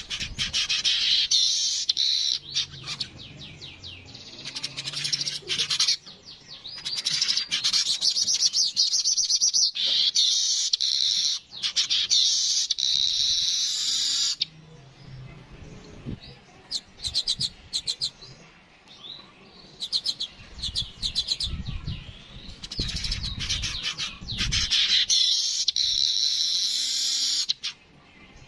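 Yellow-headed weavers (manyar) singing in repeated bursts of rapid, buzzy chattering trills, each a few seconds long, with short pauses between. A low rumble sits under the song about three-quarters of the way through.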